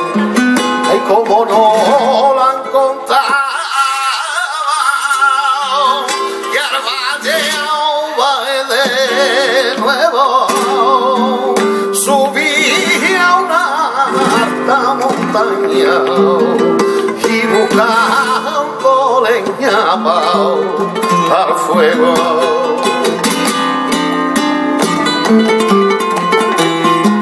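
Live flamenco cante por soleá apolá: a male cantaor sings ornamented, wavering melismatic lines over a flamenco guitar, with hand-clapping palmas marking the rhythm. The palmas grow denser near the end.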